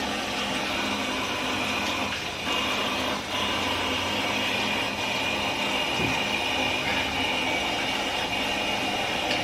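Tap water running steadily while hands are washed under it.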